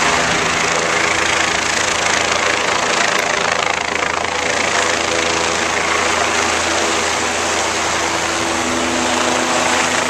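Police helicopter flying overhead: a steady drone of its engine and rotor.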